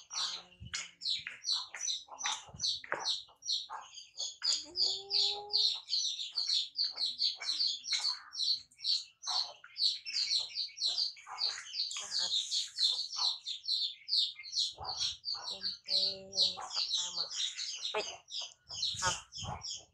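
Birds chirping rapidly and continuously, about four short high chirps a second, with a lower rising call about five seconds in and again near the end.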